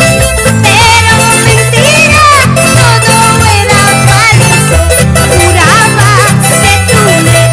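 A song recording with guitars over a steady, pulsing bass line, and a high melody line that wavers with vibrato.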